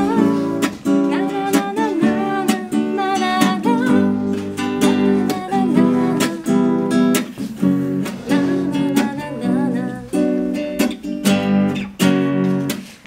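A woman singing to her own strummed nylon-string classical guitar, the strokes falling in a steady rhythm under her voice.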